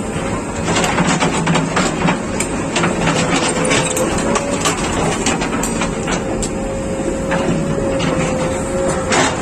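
JCB 3DX Plus backhoe loader's diesel engine running steadily, with many sharp knocks and clanks through it and a steady whine.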